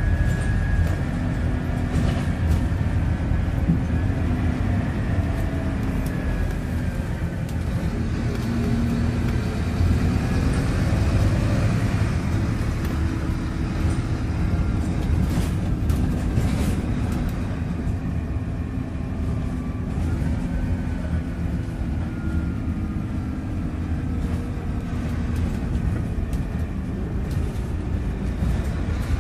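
Interior of a Scania K230UB bus with a ZF automatic gearbox on the move: a steady low engine rumble with a drivetrain whine that slowly rises and falls in pitch, and a few short rattles.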